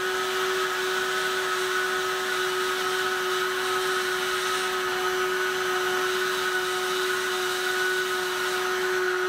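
Handheld electric heat gun running steadily, its fan blowing with a constant hum and airy hiss as it heats plastic tabs to soften them.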